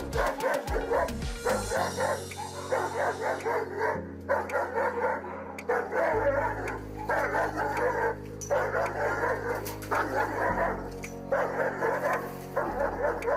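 Dogo Argentino barking in repeated bouts of deep barks, with short breaks between the bouts, over steady background music.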